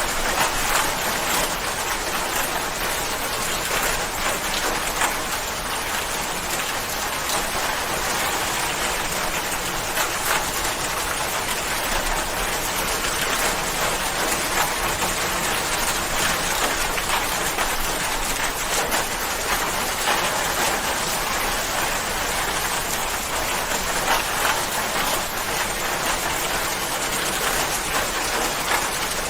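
Steady rain falling, a dense even hiss of drops with many small individual drop ticks and no let-up.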